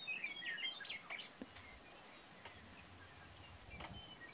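Birds calling: a flurry of short, high chirps in the first second and a half, then a few scattered notes over faint outdoor background noise.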